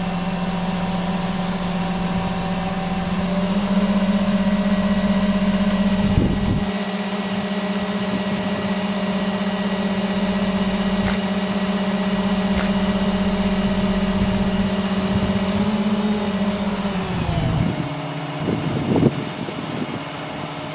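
Truck-mounted crane's diesel engine running steadily at raised speed while holding a suspended load. It steps up slightly in speed a few seconds in, winds down near the end, and a few knocks follow.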